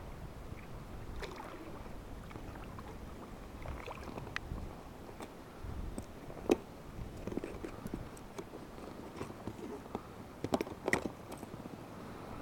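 Scattered knocks and clicks on a small fishing boat over a steady low rumble, with the sharpest knock about six and a half seconds in and a quick cluster of them near eleven seconds.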